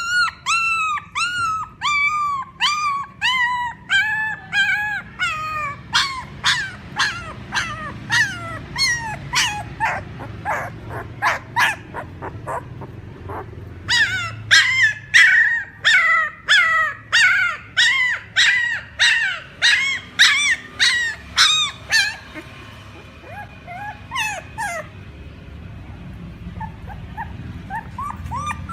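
Puppy crying and whimpering: a long run of short, high-pitched whines, each rising then falling in pitch, about two a second. They stop briefly about halfway through and turn fainter near the end.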